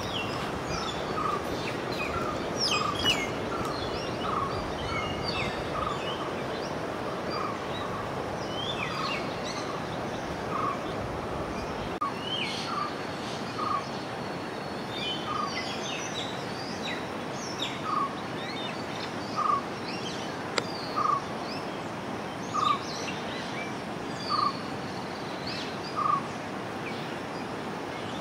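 Steady rush of running river water with birds calling over it. One bird repeats a short single note, quickly at first and then about every second and a half, while other birds chirp higher above.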